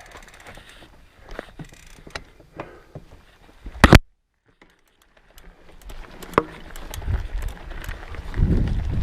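Mountain bike rolling along a dirt trail: scattered clicks and rattles, a sharp loud knock about four seconds in, then the sound cuts out for about a second before a low rumble of wind on the microphone builds.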